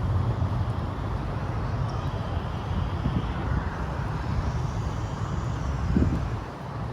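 Low engine rumble of motor traffic under a steady outdoor hiss, with a brief bump about six seconds in.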